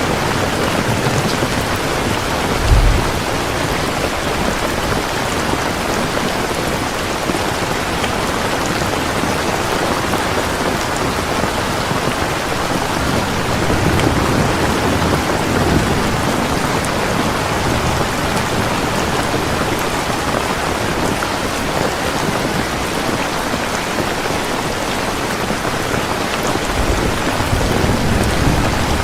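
Steady heavy rain hissing and pattering without a break. A brief low thump comes about three seconds in, and low rumbles swell around the middle and near the end.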